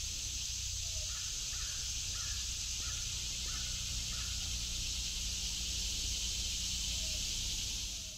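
Summer woodland ambience: a steady, high-pitched insect chorus, with a bird giving a short downward call a few times and a quick run of about six higher chirps in the first half. A low rumble runs underneath, and everything cuts off suddenly at the end.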